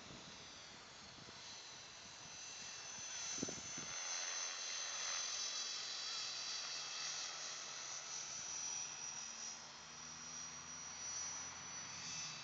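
An aircraft flying over, with a thin high whine in its engine noise. It grows louder over the first few seconds, holds, then eases off after about ten seconds.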